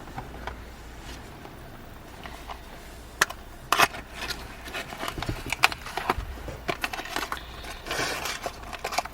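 Hand handling of small plastic parts: a quiet first few seconds, then from about three seconds in a run of sharp plastic clicks and crackling rustle as the old blower switch and its replacement are handled.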